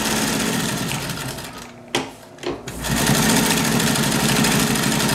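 Vintage Pfaff 138 industrial sewing machine, driven by a clutch motor, stitching a zigzag seam with a rapid rattle of stitches. About two seconds in it stops briefly with a click, then starts again and runs louder.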